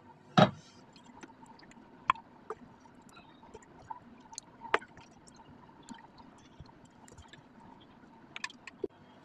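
A serving spoon scooping thick curry gravy and meat out of a frying pan, with sharp knocks and taps of the spoon against the pan: a loud knock about half a second in, then scattered taps, a few of them close together near the end.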